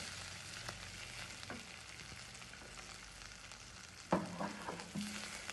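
Chopped carrots sizzling in butter in a stainless steel kadai while a spatula stirs them, scraping and tapping the pan now and then. The loudest knock comes about four seconds in.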